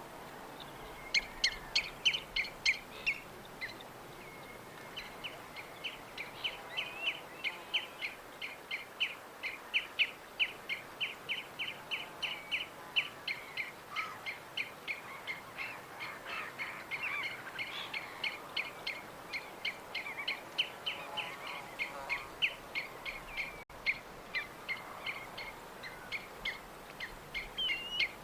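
Birds chirping: a rapid, continuous run of short, repeated chirps, about two or three a second, over a steady background hiss.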